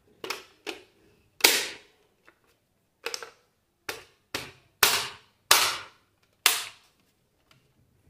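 Plastic front cover plate of a modular switch board being pressed and tapped into its frame by hand: about ten sharp snaps and palm slaps at irregular spacing.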